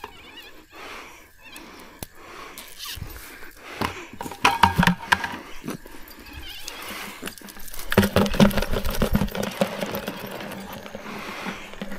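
Rustling and knocking as a green mesh yabby net is handled and shaken out over a plastic bucket, with yabbies tapping and dropping into the bucket. The handling is loudest about eight to nine and a half seconds in.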